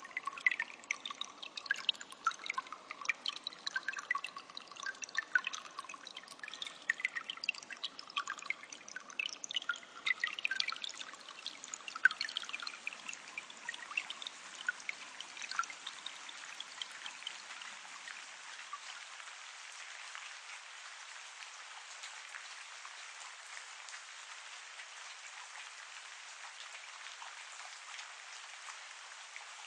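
Nature-sound recording of running water: a trickle with many small drips and splashes. About halfway through it gives way to a steady, even hiss like rain.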